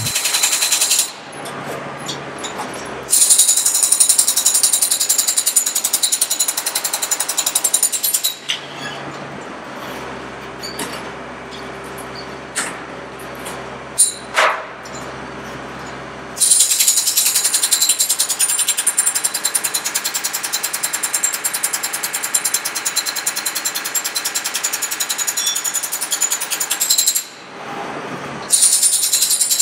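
Demolition chipping hammer breaking concrete overhead, in long runs of rapid, even hammering separated by short pauses. In the middle there is a quieter stretch of several seconds with a steady hum and a few single knocks.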